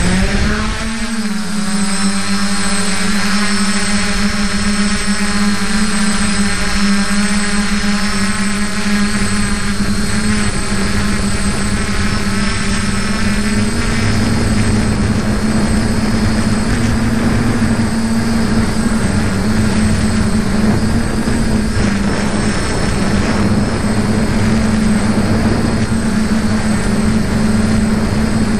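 F450 quadcopter's four motors and propellers buzzing loudly as it lifts off and climbs, heard close up from its onboard camera. The pitch rises and then settles about a second in into a steady hum that wavers slightly as it flies.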